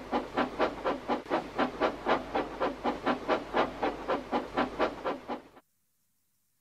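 Steam locomotive chuffing steadily as it pulls away, about five chuffs a second, growing a little fainter, then cutting off abruptly near the end.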